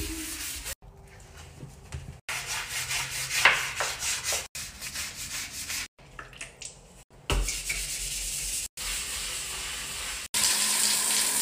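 A scrub brush rubbing on wet, soapy ceramic shower tile, heard in a run of short bursts that cut off abruptly every second or so.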